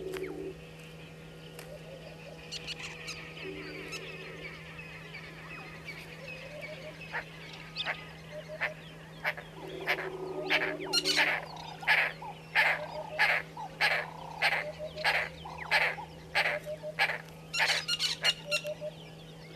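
Egyptian geese calling: a few low calls in the first half, then from about seven seconds in a long series of loud, harsh honks in quick succession.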